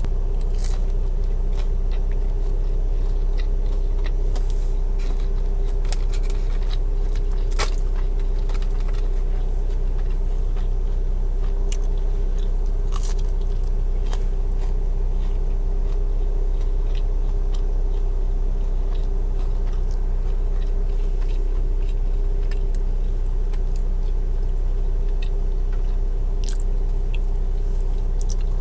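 A person biting into and chewing a breaded fried chicken nugget topped with caviar, with scattered short crunches and mouth clicks, over a steady low hum.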